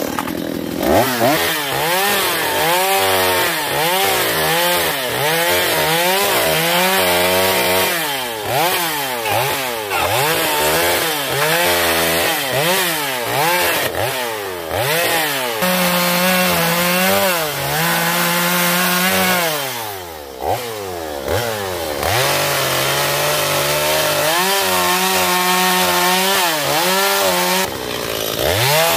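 Stihl 025 two-stroke chainsaw cutting into a log. The engine revs up and down about once a second as the bar plunges and pulls back in the cuts, and it drops off briefly twice in the second half.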